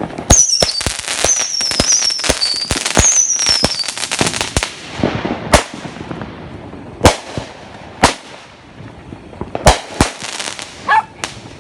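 Consumer fireworks going off. For the first four seconds there is a rapid run of bangs and crackling with high whistles falling in pitch; after that come scattered single bangs about one to two seconds apart.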